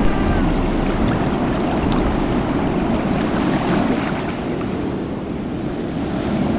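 Sound-effect of ocean waves and wind at sea: a steady rushing wash of water noise that dips a little in level about five seconds in.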